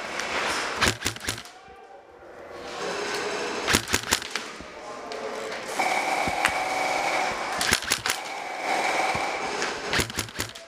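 Airsoft guns firing short bursts of sharp cracks, with the clatter of BBs striking, in about four quick groups. The bursts echo in a hard-walled hall.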